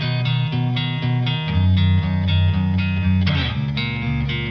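Background music led by guitar, a steady run of quickly repeated plucked notes over a bass line.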